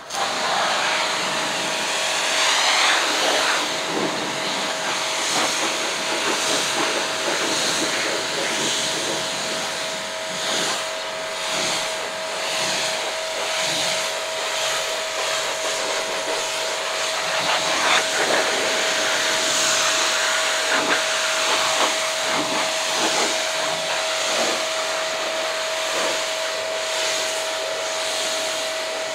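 Kränzle 1152 TST pressure washer spraying: the high-pressure water jet coming off the nozzle gives a loud, steady hiss that drowns out the machine itself, with a thin steady tone underneath. The sound starts abruptly.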